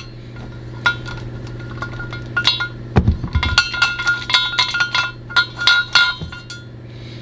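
Time-Sert install tool being unscrewed by hand from a freshly set spark plug thread insert in an aluminium cylinder head: a run of light metal clinks and ticks with a ringing note, thickest from about two and a half to six seconds in. A short low thump about three seconds in, over a steady low hum.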